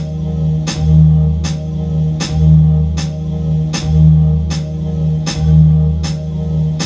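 Live music with a low bass that swells about every second and a half, steady held tones above it, and a sharp tick about every three-quarters of a second.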